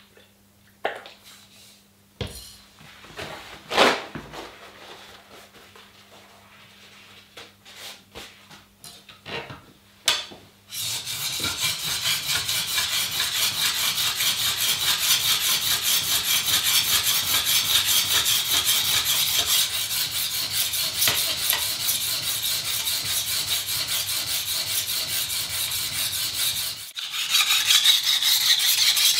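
Steel kitchen-knife blade ground in rapid back-and-forth strokes on a wet diamond sharpening plate: a steady scraping rasp that starts about a third of the way in, stops briefly near the end and resumes louder, as the bevels are reshaped. Before it, scattered knocks and clicks as the plate is wetted and the knife taken up.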